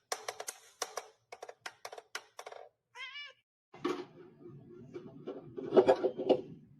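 Domestic cat vocalising: a short wavering meow about three seconds in, then a rougher, louder cat sound that peaks near the end. A run of quick sharp clicks or taps comes before it.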